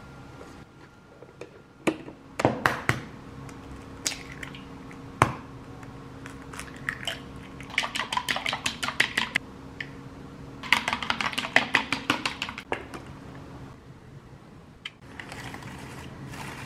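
Chopsticks beating eggs in a glass bowl: two runs of quick, light clicking, each lasting a second or two. A few sharp knocks come before them, and a soft sizzle near the end as beaten egg cooks in a tamagoyaki pan.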